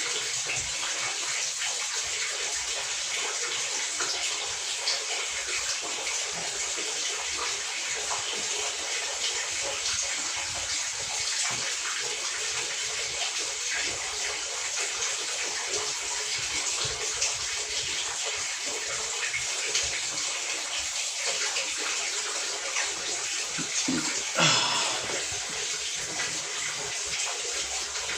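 Water running steadily in a washing machine, with a brief louder noise near the end.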